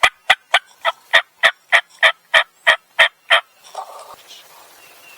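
Wild turkey yelping: a fast, even series of about fifteen loud, sharp notes, roughly three a second, that stops about three and a half seconds in.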